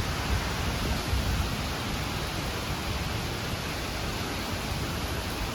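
Thunderstorm wind and rain after a tornado: a steady rushing hiss, with gusts buffeting the microphone in low rumbles.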